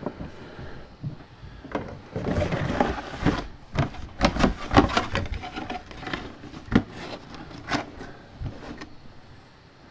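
A clear plastic mini-helmet display cube and its cardboard box being handled. A rubbing slide about two seconds in as the cube goes into the box, then a run of sharp plastic and cardboard clicks and knocks, dying down near the end.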